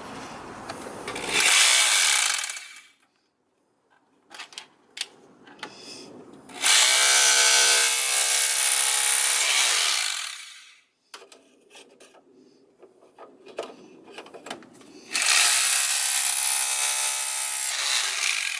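A power tool run in three bursts of a few seconds each, a steady-pitched whir, with clicks and clanks of tools in between, as fasteners are taken off during the teardown to reach the water pump.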